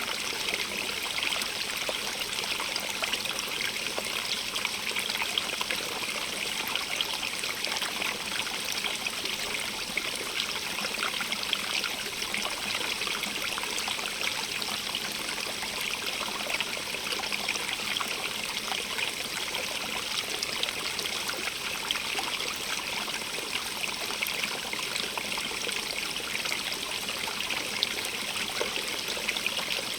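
Stream running over stones: a steady rush of water with constant fine splashing and trickling.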